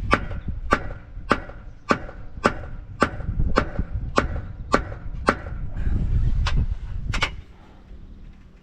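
Hammer blows on a stuck steel pin in a crane's hydraulic ram mounting, about two strikes a second with a short metallic ring on each, some dozen blows with a brief pause near the end before a last few. The pin is seized and won't drive out.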